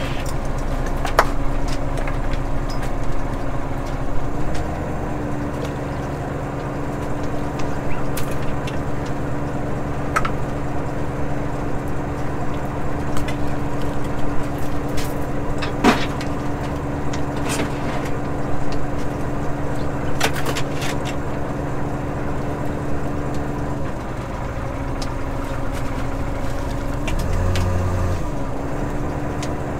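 Fishing boat's engine and hydraulic longline hauler running steadily as halibut gear is hauled. The pitch steps up a few seconds in and dips briefly near the end. Sharp knocks and clicks come every few seconds, from line and gear against the rail and roller.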